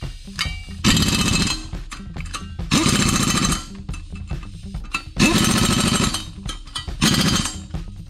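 Air impact wrench hammering on the flexplate bolts at the back of the crankshaft, in four bursts of about half a second to a second each.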